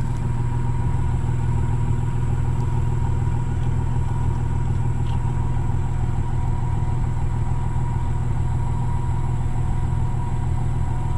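Vehicle engine idling steadily, heard close up at the exhaust tailpipe.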